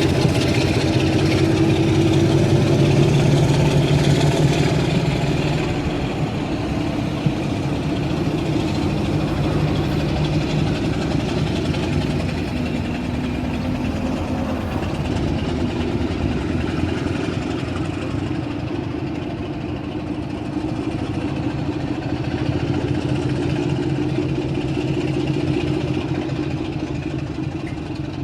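Diesel locomotive engine running steadily at idle, a low, even drone.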